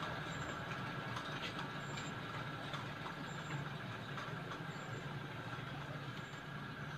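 Steady low background hum with a faint steady high tone and a few light scattered ticks.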